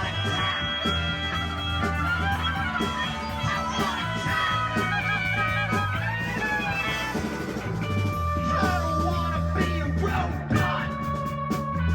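Live rock band playing an instrumental passage: electric guitar lines over held bass notes and drums, with the cymbal and drum hits getting busier near the end.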